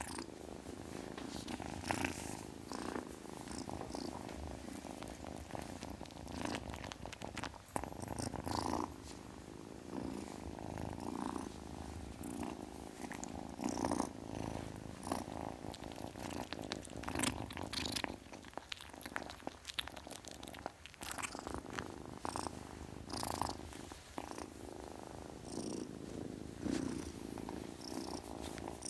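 A kitten purring continuously, with scattered faint clicks throughout.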